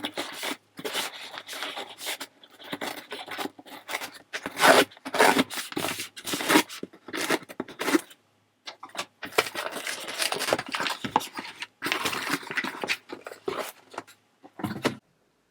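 Packaging on a new iPad box being torn open and handled: irregular bursts of tearing and cardboard scraping, with short pauses in between.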